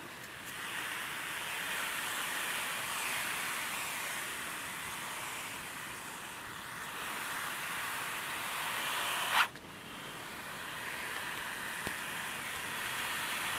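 A snake hissing in long drawn-out breaths, swelling and fading, then building to a sharper, louder hiss that cuts off suddenly about nine seconds in.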